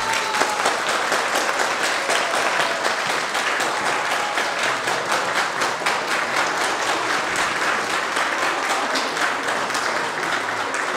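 A crowd of people clapping, steady and sustained applause.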